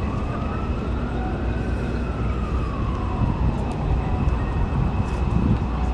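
Steady low city rumble of traffic and ambient noise, with a faint distant siren wailing up and then back down once over a few seconds.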